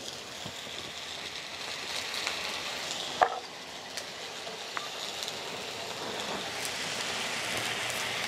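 Beef liver, soaked in milk, and nopal pads sizzling in hot oil on a comal, with small pops and crackles, growing a little louder. One sharp knock about three seconds in.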